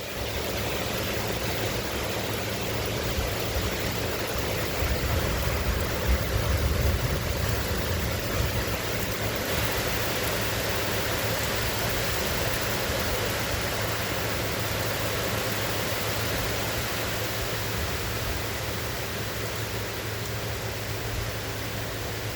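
Heavy thunderstorm rain pouring steadily, a dense even hiss. A low rumble swells about five seconds in and fades by about nine seconds.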